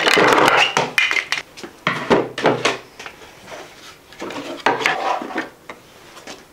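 Hollow 3D-printed plastic plane parts knocked, slid and set down on a tabletop: a run of clacks and rattles, busiest in the first second, with a few more knocks later.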